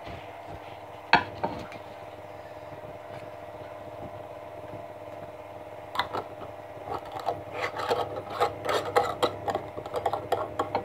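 Drink being mixed in a blue mason-jar mug of water with Minute Maid poured in: a sharp knock about a second in, then from about six seconds a run of quick, irregular rattles and knocks from the mug being worked. A steady low hum runs underneath.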